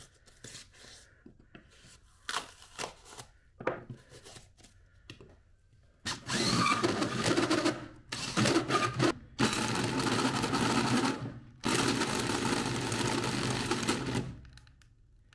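Handling clicks and knocks, then a drill driving a hole saw on a long extension shaft through the truck's floor in three long runs, with two brief stops. The drill is overheating under the load, to the point of smoking.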